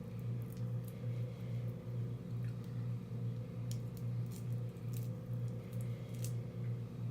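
A person chewing and smacking on seafood up close, with scattered small sharp clicks, over a steady low hum that pulses about twice a second.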